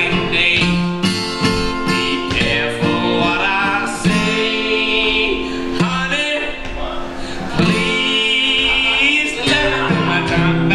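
A man singing while playing an acoustic guitar, a solo live performance of a country-blues song.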